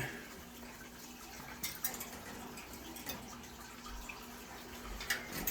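Quiet indoor room tone with a faint steady hum and a few light clicks and soft thumps.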